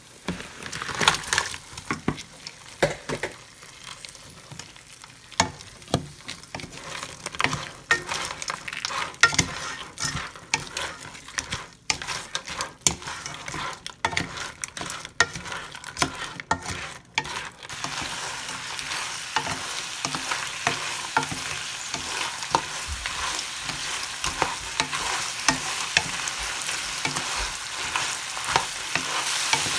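Whole crawdads being stir-fried in a hot pan: oil sizzling while the shells and a spatula clatter against the pan in many sharp clicks and knocks. After about 18 seconds the clatter thins and the sizzle becomes steadier and louder.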